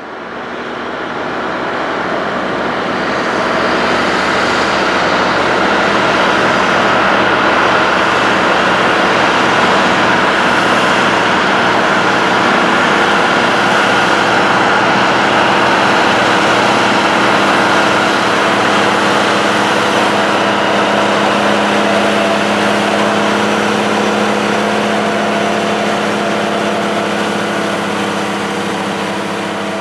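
Big four-wheel-drive farm tractors' diesel engines running steadily under load while pulling tillage tools through the field. The sound swells over the first few seconds, then holds steady.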